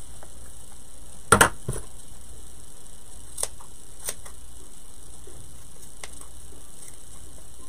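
Scissors snipping excess fabric off a small glued craft piece: a sharp double snip, the loudest sound, about a second and a half in, then three fainter single snips a second or two apart.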